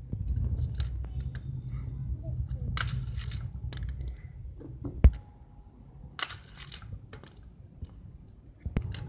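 Clicks and rattles of a plastic Hot Wheels loop track: a sharp snap about five seconds in as the spring launcher fires, then a run of clicks as a die-cast car rattles over the plastic track joints. A low rumble sits under the first half.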